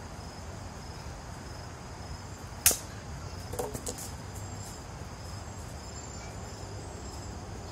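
Plastic wiffleball bat striking a wiffleball: one sharp, loud crack a little under three seconds in, followed about a second later by a few lighter knocks.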